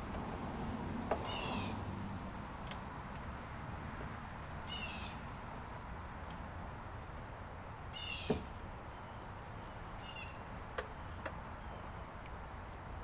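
A bird calling four times, each a short call sliding down in pitch, a few seconds apart. A few sharp clicks are heard in between, the loudest about eight seconds in.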